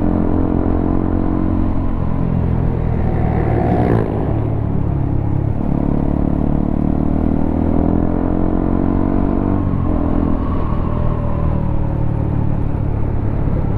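Honda CBR motorcycle engine running loud through a WRX K3 oval aftermarket exhaust, its pitch rising and falling several times as the engine speed changes, with sudden drops about four seconds in and again near ten seconds.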